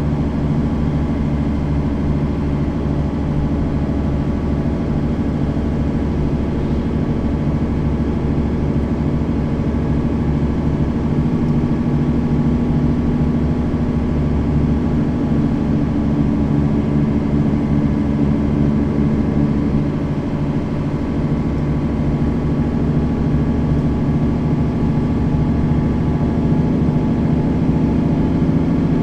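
Mercedes-Benz Citaro facelift city bus engine running steadily, heard from inside the bus, with a brief dip in level about twenty seconds in and a slight rise after.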